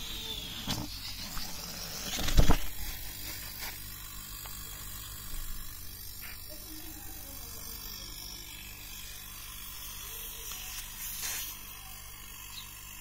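Refrigerator compressor run as an air pump, humming steadily while it pumps air. A loud knock comes about two and a half seconds in.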